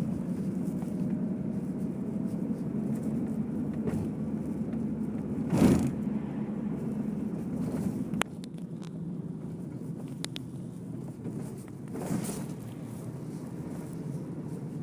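Steady low rumble of a vehicle in motion on a taxi or metro ride. A brief loud rush comes about five and a half seconds in, a few sharp clicks follow after eight seconds, and a softer rush comes near twelve seconds.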